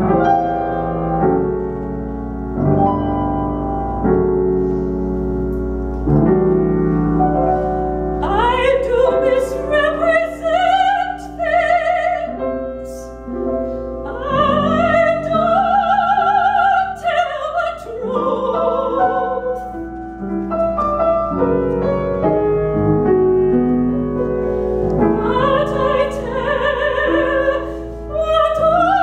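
Grand piano playing chords alone, then a woman's operatic voice comes in about eight seconds in, singing with wide vibrato over the piano accompaniment, breaking off and returning between phrases.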